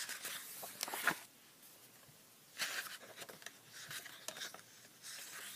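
Sheets of a scrapbook paper pad being lifted and turned by hand, the paper rustling and sliding in a few short bursts, with a sharp tap about a second in.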